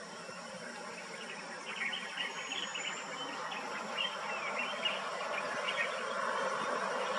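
Steady buzzing of insects, with quick chirping calls between about two and six seconds in; a vehicle engine grows louder near the end.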